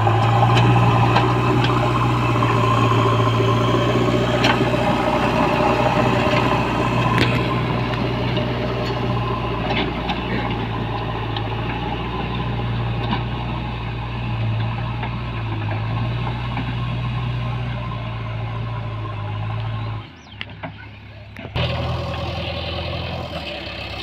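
A JCB backhoe loader's diesel engine running steadily as the machine works the ground, with a few faint clicks over the drone. The engine sound drops out briefly about twenty seconds in, then resumes.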